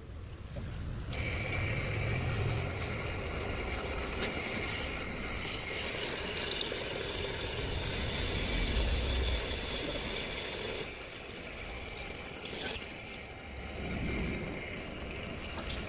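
Pillar drill running as an HSS hole cutter bores through a steel flat bar: steady motor noise with a high whine and the scrape of the cutting, starting about a second in.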